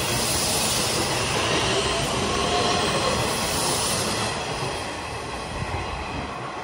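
Nishitetsu 9000 series electric train running past close to the platform, with wheels on the rails and a faint motor whine. The noise dies away after about four seconds as the last car clears.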